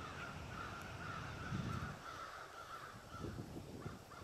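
Crows cawing, a run of harsh calls that goes on until about three seconds in, over a low outdoor rumble.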